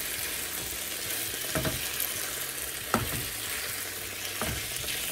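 Sliced potatoes sizzling in oil in a nonstick frying pan as a silicone spatula stirs and turns them. A steady sizzle, with three soft knocks of the spatula against the pan, the sharpest about three seconds in.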